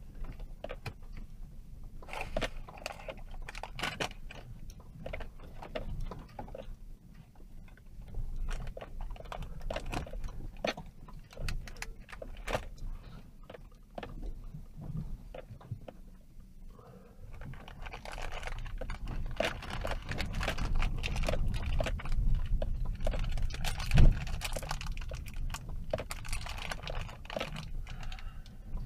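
A vehicle creeping over a rough dirt track, heard from inside the cabin. A low road rumble runs under a constant stream of clicks and rattles as the vehicle jolts over ruts. It grows louder partway through, and one hard thump stands out a few seconds later.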